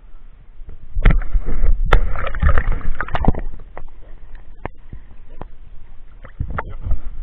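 Water splashing and sloshing over a camera held at the water surface as a swimming Leonberger dog and a person's arm churn the lake. Loudest from about a second in to about three and a half seconds, then lighter lapping with a few sharp knocks.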